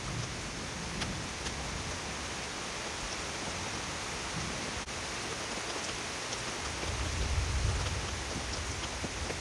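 Steady rain falling, with a few sharp ticks and a low rumble swelling about two-thirds of the way in.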